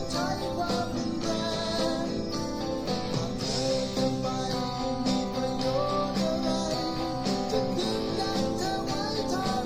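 Eko LP electric guitar played through a Cuvave Cube Baby amp-modeling effect, heard from a JBL Clip 3 portable speaker. It plays a melodic line with bent and vibrato notes over sustained tones.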